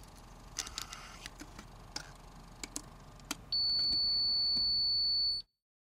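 A few light clicks and crackles over faint hiss, then a loud, steady, high-pitched electronic beep. The beep lasts nearly two seconds and cuts off abruptly into silence.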